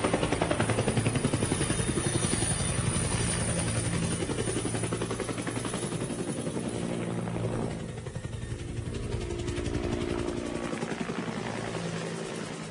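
Helicopter sound effect: fast chopping of the rotor blades over a steady engine drone, starting to fade out near the end.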